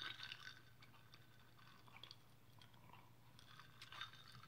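Faint chewing: a person working the last crunchy bits of a dehydrated grasshopper in the mouth, with small scattered clicks and crackles over a steady low hum.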